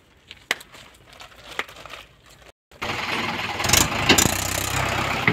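A few faint clicks, then, after a brief dropout about three seconds in, a tractor's diesel engine running steadily with a low rumble and some clatter.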